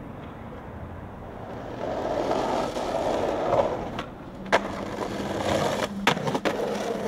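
Skateboard wheels rolling on pavement, growing louder from about two seconds in, with a few sharp clacks of the board hitting the ground in the second half.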